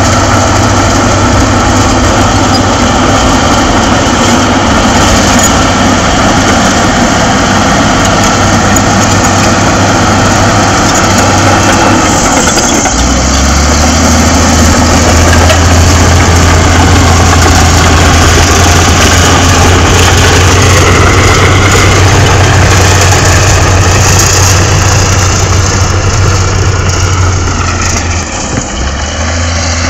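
Diesel engine of an SD16E crawler bulldozer running under load as it pushes soil, a steady low drone. About halfway through the drone drops in pitch and gets a little louder.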